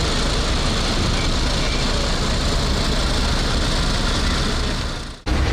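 Fire engines' engines running steadily, a low hum under a broad even noise. The sound fades and cuts out for an instant near the end, then returns with a stronger low hum.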